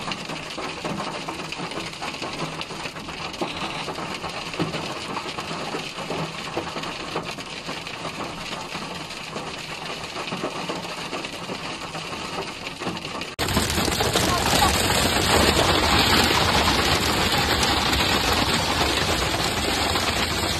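Hailstones rattling rapidly and densely on a car's body and windscreen. About 13 seconds in, a cut brings a louder, steadier downpour drumming on a car.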